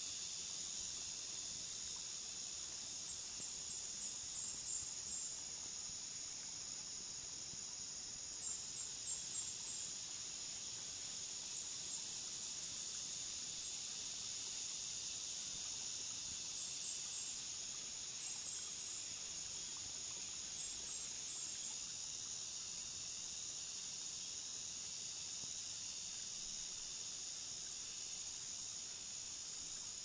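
Steady high-pitched chorus of tropical crickets and cicadas, with short runs of chirps every few seconds and a faint pulsing very high insect call in the second half.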